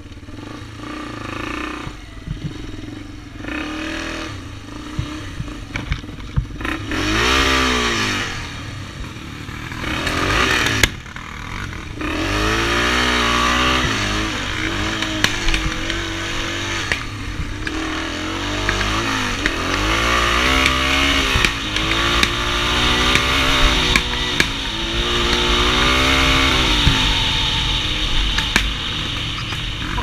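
Small off-road vehicle engine under way, revving up and falling back again and again, with short irregular pops and clatter; the engine is misfiring.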